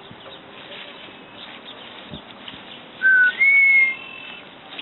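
Faint chatter of red-winged blackbirds, then about three seconds in a loud two-note whistle: a short lower note followed by a longer, higher one.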